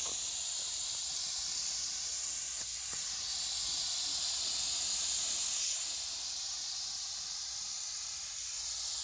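Paint spray gun hissing steadily as a coat of clear is sprayed, swelling and easing as the passes go on, with a brief louder burst a little past halfway.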